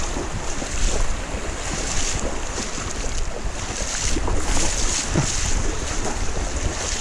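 Wading through a shallow, rocky river: splashes about once a second over the steady rush of the water, with wind rumbling on the microphone.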